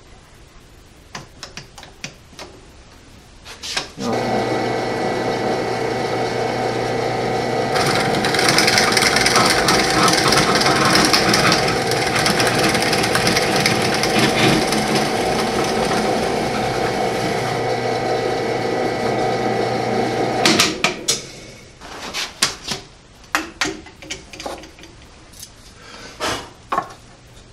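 A few clamp clicks, then a drill press motor starts about four seconds in and runs with a steady hum. A few seconds later a 3/8-inch bit bores down into a 2x4 wood block, adding a rough cutting noise for about ten seconds, drilling the hole partway from one side. The motor stops about twenty seconds in, followed by clacks and knocks as the bar clamps are taken off.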